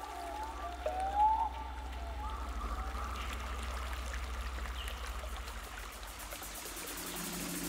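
Ambient documentary soundtrack: a few gliding tones at the start give way to an even rushing noise over a low pulsing hum, and a low held chord comes in near the end.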